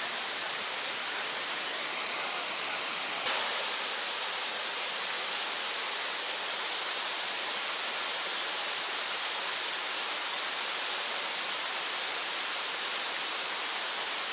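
Steady rushing of a waterfall, with a sudden small step up in level about three seconds in.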